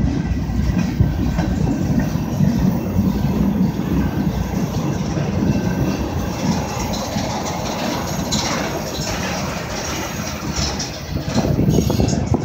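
Freight cars of a long mixed freight, empty centre-beam flatcars and tank cars, rolling steadily past. Steel wheels give a continuous low rumble on the rails, with a few sharper clacks over the rail joints in the second half.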